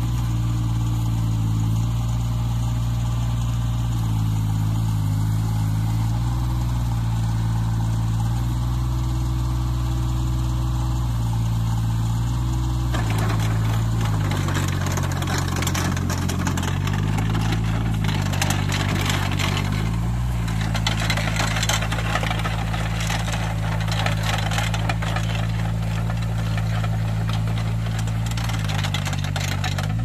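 Yanmar YTB800 mini excavator's diesel engine running under working load, its pitch dipping and rising several times as the hydraulics dig and swing. From about 13 seconds in, a dense clattering rattle of machine and soil noise joins over the engine.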